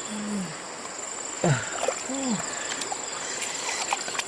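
Steady high-pitched insect drone, cricket-like, running on without a break, with a few short voice sounds interrupting it near the start and around the middle.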